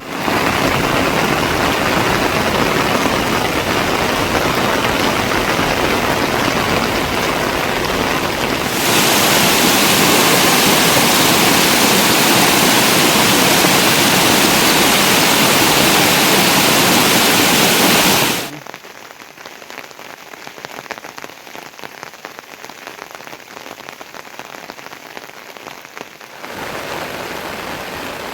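Heavy rain falling steadily, as an even hiss. It jumps louder about a third of the way in, drops suddenly to a softer patter about two thirds through, and rises a little again near the end.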